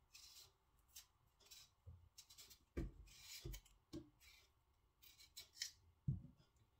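Faint kitchen hand work: a run of short scraping strokes at irregular intervals, with a few soft knocks around the middle and one more near the end.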